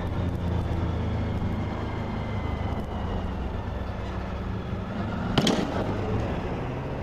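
A vehicle engine running steadily, with one sudden sharp bang about five and a half seconds in.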